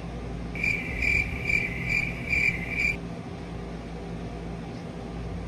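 Cricket chirping sound effect: six short chirps, about two a second, that stop after about two seconds.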